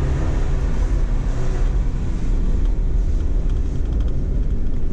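2019 Jeep Wrangler Rubicon driving along a dirt track, heard from inside the cabin: a steady low engine and road rumble with tyre noise over the loose surface.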